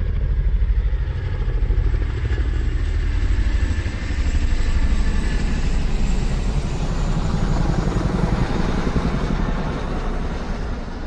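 A loud engine running with a rapid, pulsing throb that fades away near the end, as if the vehicle is moving off.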